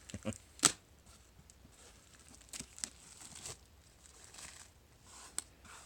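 Vinyl record box set being handled and pried open by hand: intermittent rustling and scraping of packaging, with a sharp click about half a second in and another near the end.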